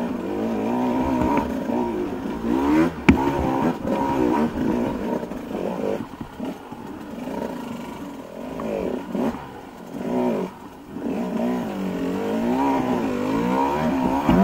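Dirt bike engine revving up and down under load on a steep rocky climb, its pitch rising and falling constantly with the throttle. Sharp knocks stand out about three and four seconds in, and the engine eases off briefly around ten seconds in before picking up again.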